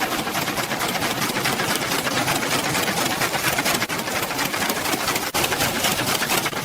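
Sewing machine running steadily, a fast even stitching rattle.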